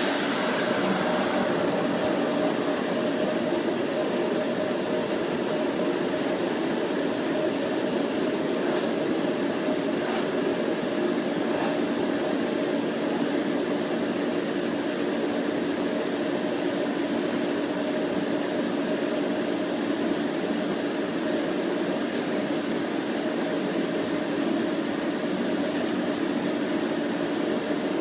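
HT-25 machine running steadily, its motor and airflow making an even whooshing noise with a low hum and a thin, high, steady whine.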